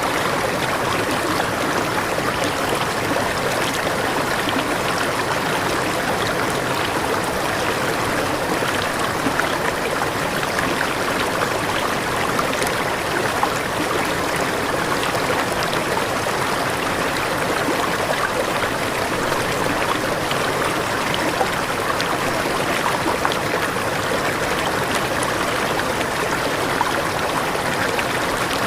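A waterfall's water falling and running in a steady, even rush.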